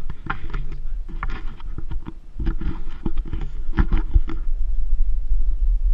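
Wind rumbling steadily on the camera's microphone. Over it, irregular bursts of rustling and knocks stop about four and a half seconds in.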